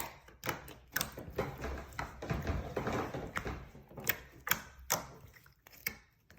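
Slime being squeezed and popped by hand: a run of short, sharp pops and clicks at irregular intervals, about three a second.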